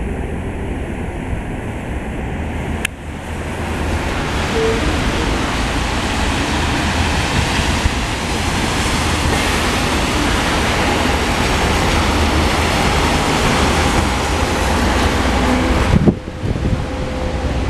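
Street traffic on wet asphalt: a steady hiss of tyres on the wet road, mixed with wind on the microphone, as an electric bus draws up to the stop. A sharp click comes about three seconds in, after which the hiss grows louder.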